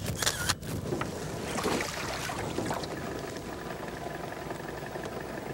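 Wind and moving water around a small aluminium boat on open water, a steady noise, with a short burst of noise near the start.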